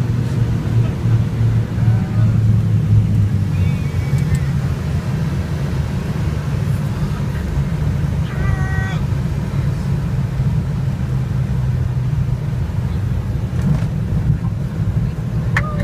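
Piston engines of a light twin-engine aircraft droning steadily, heard inside the cabin during landing. The engine note drops about three seconds in as power is pulled back for touchdown, leaving a rougher, lower hum through the rollout.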